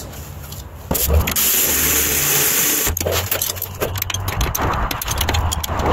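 A ratchet snugging down a rear brake caliper's mounting bolts. About a second in comes a loud hiss lasting about a second and a half, then a run of rapid clicking and mechanical whirring.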